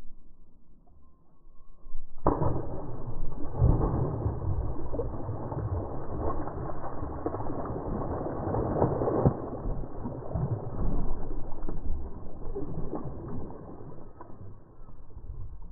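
Slowed-down splash of a bass thrown back into the water: a deep, drawn-out wash of sound that starts suddenly about two seconds in and fades slowly over the following seconds, with no high end.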